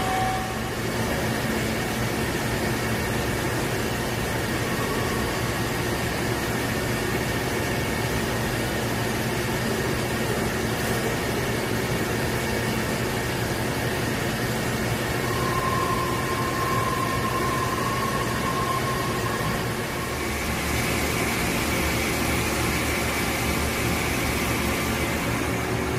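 Hyundai Wia SKT2500MTS CNC lathe running with its spindle turning a workpiece: a steady machine hum and hiss. A clear whine sounds for a few seconds near the middle, and about three-quarters through the sound turns hissier, with a stronger low hum.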